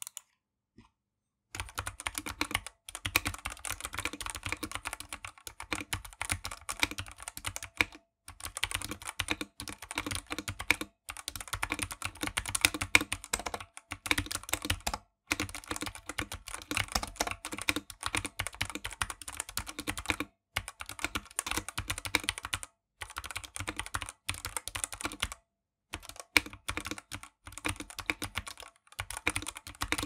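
Typing on a Womier WK61 60% hot-swap mechanical keyboard with pudding keycaps: runs of keystrokes broken by short pauses, starting about a second and a half in. It sounds quite hollow, with spring ping and metal ping, from a bare plastic case with no foam or sound dampening inside.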